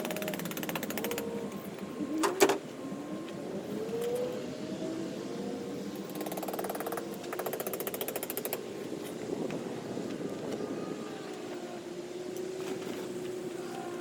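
A zipper on a nylon tent being pulled in long runs of rapid teeth clicks, once at the start and again about six seconds in, with a single sharp knock about two seconds in.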